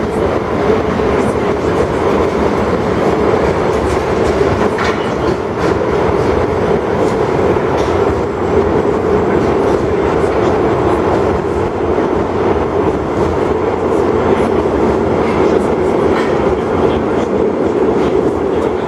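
Inside a moving metro train car: the steady, loud rumble of the running train, with a few faint clicks from the wheels on the rails.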